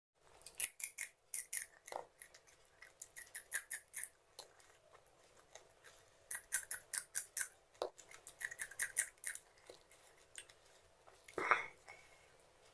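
Raw green chillies being bitten and chewed close to the microphone: rapid crisp crunches in two runs of a few seconds each. A short duller sound comes near the end.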